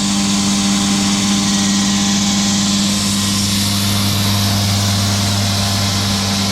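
Diamond-bladed concrete saw running steadily with a deep engine hum, its blade grinding slowly through a concrete curb with a dense, even hiss.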